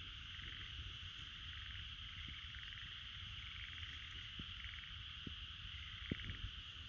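Steady high-pitched chorus of calling animals, with short pulsed trills repeating about once a second, over a low rumble and a few soft thumps.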